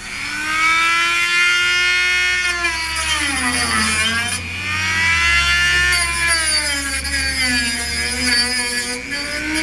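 Dremel rotary tool with a sanding drum whining at high speed, grinding old braze residue off a pipe fitting. Its pitch sags under load and recovers, dropping most clearly twice.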